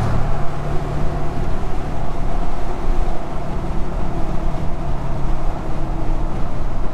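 Steady drone of engine and road noise inside the cab of a lifted Dodge Ram 2500 pickup as it drives.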